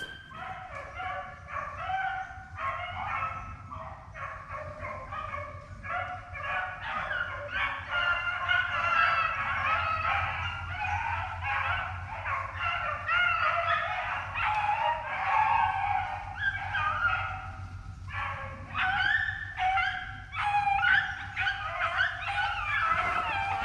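A pack of rabbit dogs baying and yelping together almost without a break as they run a swamp rabbit's trail.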